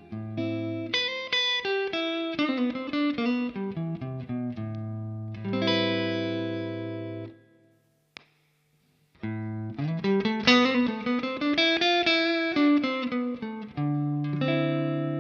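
Electric guitar played through a DaNiel Pedals optical compressor, in a pedal demo: picked note phrases and a sustained chord that rings out. The playing stops for about a second and a half midway, with one short click in the gap, then picks up again.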